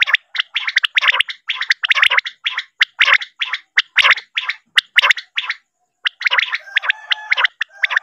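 Common quail (batair) calls: a dense, rapid run of short, sharp notes repeated several times a second, breaking off briefly about two-thirds of the way through before resuming.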